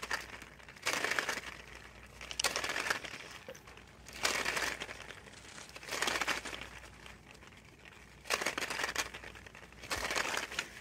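A dry-erase whiteboard being wiped by hand, about six separate rubbing strokes across the board, one every second and a half to two seconds.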